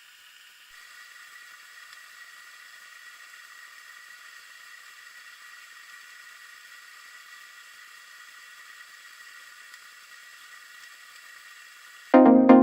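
Faint, steady hiss with a thin high whine, the background noise of an underwater fishing camera's recording. Electronic dance music cuts in loudly near the end.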